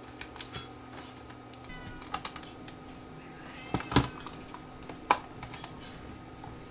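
Small clicks and taps of screws and a screwdriver being worked into the plastic back of a portable cassette recorder, with a couple of brief squeaks and a few louder knocks near the middle.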